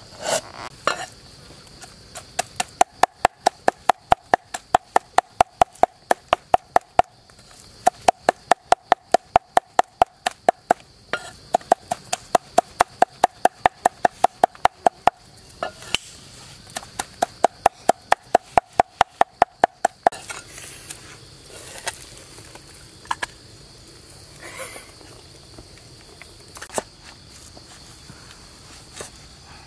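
A large kitchen knife chopping rapidly on a wooden board, mincing fish with chillies: about three or four chops a second in runs of a few seconds, each chop with a brief ring from the blade. About twenty seconds in the chopping stops and gives way to scattered light knocks and scrapes, with a steady high insect drone underneath throughout.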